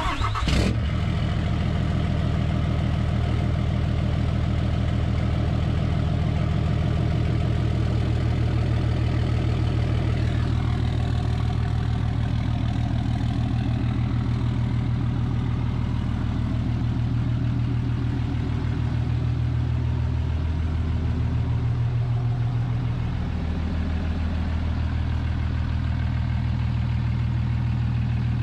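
6.7-litre Cummins turbo-diesel inline-six, breathing through a 5-inch straight-pipe exhaust with no muffler, starts with a short loud burst and settles into a steady, deep idle. The level dips slightly about two-thirds of the way through.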